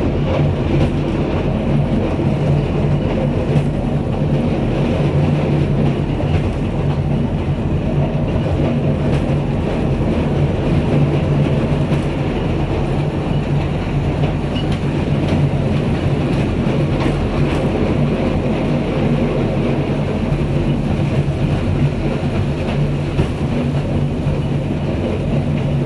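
Narrow-gauge park railway train running, heard from its open passenger carriage: a steady rumble of the wheels on the track with faint clicks now and then.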